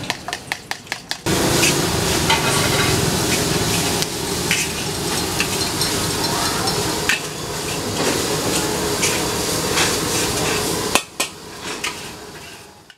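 Fried rice sizzling in a hot wok as a metal spatula scrapes and knocks against the pan during stir-frying. The sizzle starts abruptly about a second in, after a quick run of sharp knocks, and fades out near the end after one loud knock.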